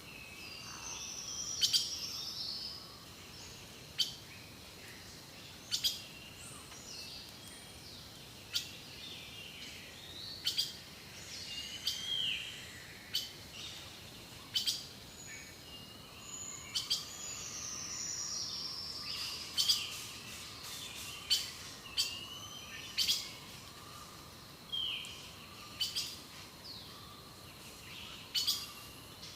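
Several birds singing: short sharp call notes repeating about every one to two seconds, over longer gliding, warbling song phrases.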